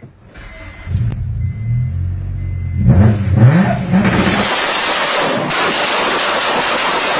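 Modified Honda car engine on launch control: it idles, the revs climb about three seconds in, and from about four seconds it is held against the launch-control rev limiter. The exhaust fires a loud, continuous string of bangs that police took for gunfire.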